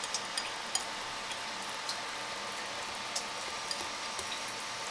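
Wire whisk stirring thick, sticky flour-and-water pancake batter in a bowl, giving a few scattered light ticks of the wires against the bowl over a steady background hiss.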